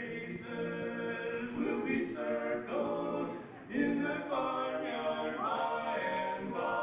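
Barbershop quartet of four men singing a cappella in close harmony, moving through a series of held chords.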